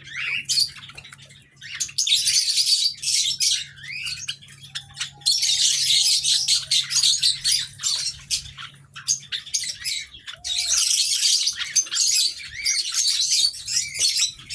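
A flock of Java sparrows chirping and calling together, in dense bursts of high, quick notes separated by short lulls.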